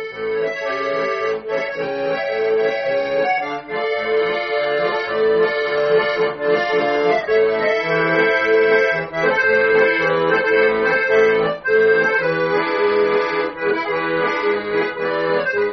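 Bayan, a Russian button accordion, playing a melodic instrumental interlude over a rhythmic bass-and-chord accompaniment between sung verses.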